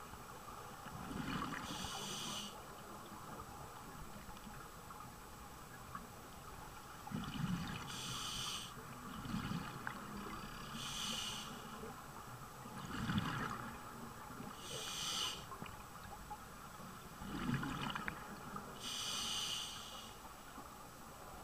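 Scuba diver breathing through a regulator: a muffled inhale, then a hissing gurgle of exhaled bubbles, repeating about every four seconds, five breaths in all.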